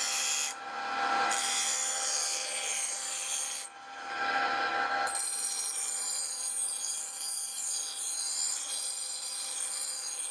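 Bench grinder's white abrasive wheel grinding the edge of a steel cleaver blank, throwing sparks: a steady rasping hiss of steel on the wheel over the grinder's hum. The hiss briefly thins twice, about a second in and again around four seconds, as the pressure on the blade changes.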